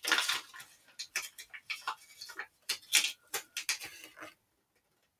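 Small plastic Mini Brands miniatures clicking and tapping as they are handled and set down on a tabletop: a run of irregular sharp clicks that stops about four seconds in.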